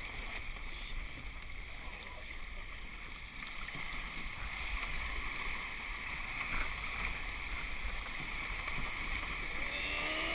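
Water rushing and spraying along the hull of a 29er sailing skiff moving at speed, with wind buffeting the microphone. The rush grows a little louder a few seconds in.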